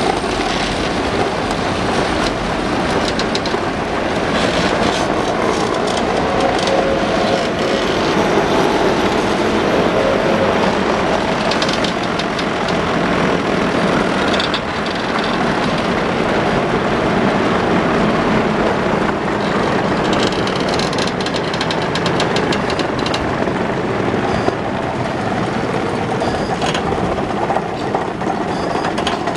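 Trieste–Opicina tram running on its steep cable-assisted section: a steady rumble of steel wheels on rail, with spells of clicking over the track, most of all about two-thirds of the way through.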